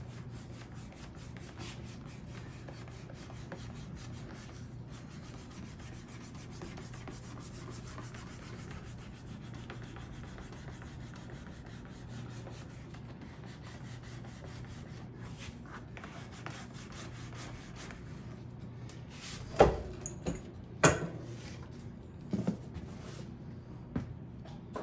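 Leather saddle seat being rubbed down onto the glued seat: a steady, even scuffing that goes on for most of the time, followed by a few sharp knocks near the end.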